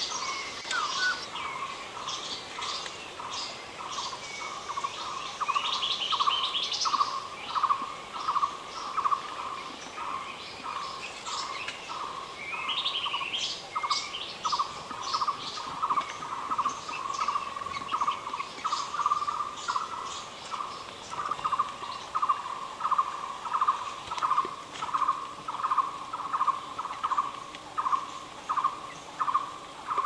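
Wild jungle birds calling: a short note repeated about twice a second throughout, with higher chirps and trills from other birds over it, busiest in the first half.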